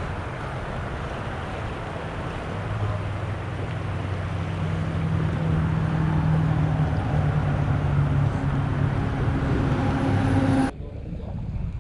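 An engine's steady hum over a wash of noise, growing louder over several seconds, then cut off abruptly about a second before the end, leaving a quieter outdoor hiss.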